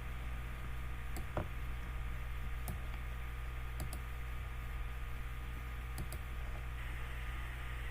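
A few scattered light clicks, some in quick pairs, over a steady low hum.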